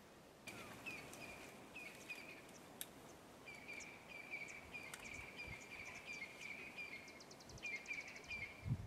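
Faint bush ambience: a small animal repeats a short high call two or three times a second, with a quick rattle of ticks about seven seconds in. A few sharp clicks are scattered through, and low thumps come near the end.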